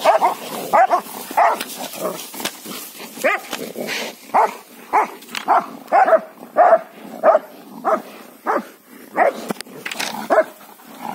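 German shepherd dog barking repeatedly at cattle, about one to two loud barks a second with no letup.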